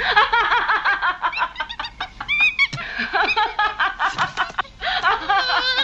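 A woman laughing in quick repeated bursts. Near the end, a monkey gives high-pitched shrieks.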